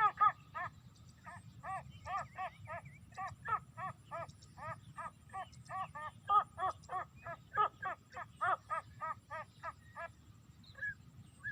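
Watercock calling: a long, quick series of short, arched notes, about three a second, that breaks up into a few scattered notes near the end.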